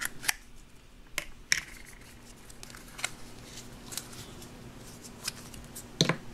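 Hands handling a plastic Play-Doh tub, plastic toy pieces and the dough on a table: scattered light clicks and taps, with the loudest knock near the end.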